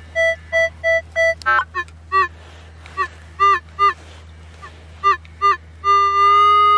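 Minelab CTX 3030 metal detector sounding off on a buried target as the coil is swept over it: quick short beeps at one higher pitch in the first second or so, then a string of lower beeps, some in pairs, and near the end a long steady tone as the coil holds over the target.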